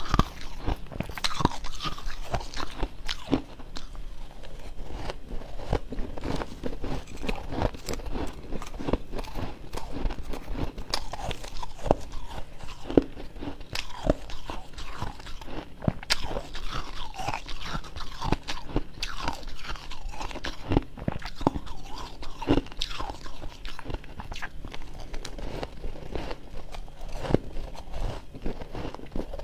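Close-up crunching and chewing of mouthfuls of freezer frost eaten off a spoon, a dense run of irregular crisp crunches.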